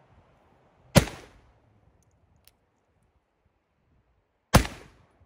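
Two shots from a .44-calibre 1851 Colt Navy replica, a Pietta cap-and-ball black-powder revolver loaded with 18 grains of powder: one about a second in and another about three and a half seconds later, each dying away within about half a second.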